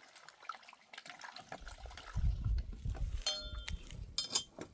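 Dishes clinking and liquid sloshing, with a low rumble through the middle. A struck metal or glass vessel rings briefly twice near the end.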